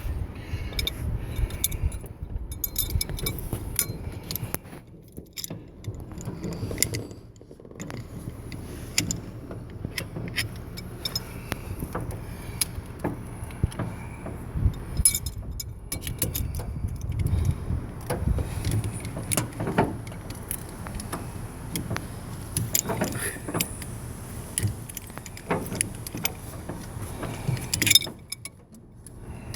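A long ratchet strap being pulled out through its released ratchet, with many irregular metallic clinks and rattles from the ratchet and hook hardware.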